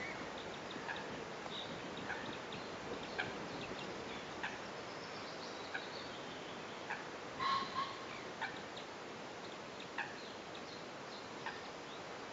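White-tailed eagle tearing at prey on its stick nest: scattered short clicks and crackles, about one a second, over a steady hiss, with one louder brief sound about seven and a half seconds in.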